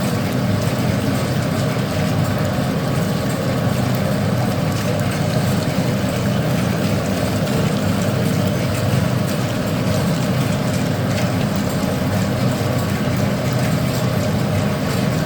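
Electric grinder running steadily, a low even hum.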